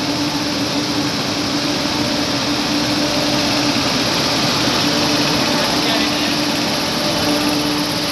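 WAP-7 electric locomotive pulling out slowly, running with a loud, steady drone and a hum held at one pitch.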